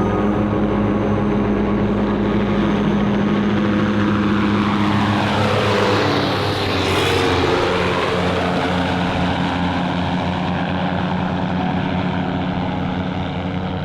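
Light aircraft propeller engine droning as the plane flies past. The note peaks about halfway through and drops in pitch as it goes by, then carries on steady.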